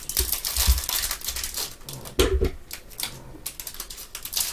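Clear plastic wrapper on a stack of trading cards crackling in quick, irregular clicks as gloved hands peel it open, with a couple of soft knocks from handling.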